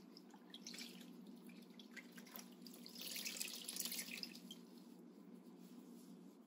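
Faint water dripping from a wet washcloth, then a brief trickle of water about three seconds in.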